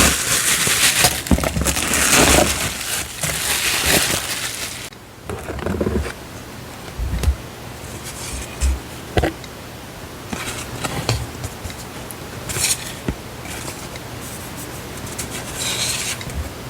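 Paper and stationery packaging rustling and crinkling as items are handled and unwrapped. It is loudest for about the first five seconds, then turns into quieter scattered rustles and a few light taps.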